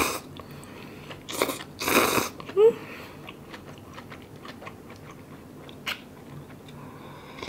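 Close-up eating sounds of instant cup ramen: loud noodle slurps near the start and again at about one and a half and two seconds, then quieter chewing with soft mouth clicks, and a short rising hum in between.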